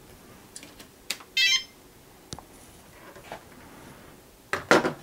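A radio-control transmitter being switched on: a few small switch clicks and one short, buzzy electronic beep about a second and a half in. A cluster of louder clicks and knocks from handling comes near the end.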